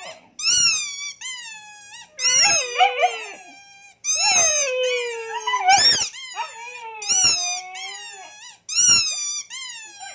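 Siberian huskies vocalising: about five drawn-out howling calls that slide down in pitch, with two voices overlapping around three seconds in.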